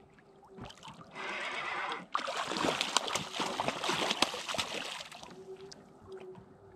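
A hooked fish thrashing and splashing at the water surface beside the boat as it is reeled in. A burst of splashing starts about two seconds in, lasts about three seconds, then dies down.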